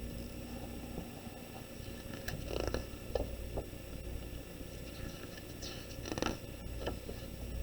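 Soft rustling and handling of a picture book as a page is turned, a few short rustles over a low steady hum.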